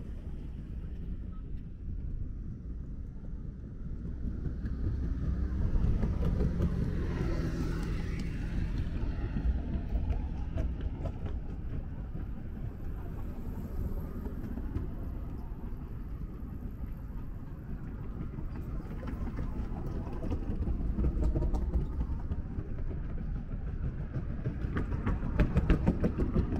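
Road traffic passing on the carriageway beside the pavement over a steady low rumble. A vehicle engine swells past about six to eight seconds in, another pass comes around twenty seconds in, and a car goes by close near the end.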